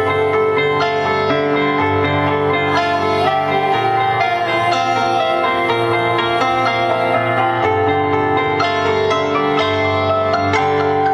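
Music: a song with a held, wavering melody line over evenly struck accompanying notes.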